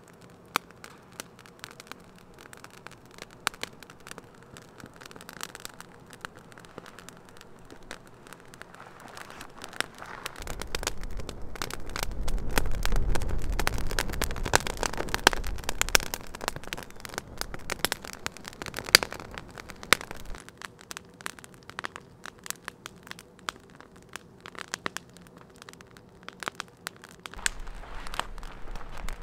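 Campfire of dry twigs and split kindling catching, with irregular sharp crackles and pops. It grows louder for about ten seconds in the middle as the flames flare up through the brush, then settles back to scattered crackling.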